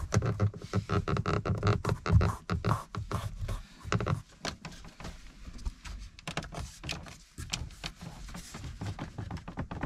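BMW X5 F15 dashboard trim panels creaking and crackling in quick, irregular clicks as a hand presses and rocks them. The plastics are loose and badly fitted and do not hold together.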